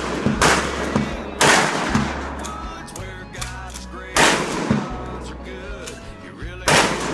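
Mossberg 500 ATP 12-gauge pump shotgun firing four blasts: two about a second apart near the start, then one a few seconds later and one near the end. Each shot trails off in a long echo.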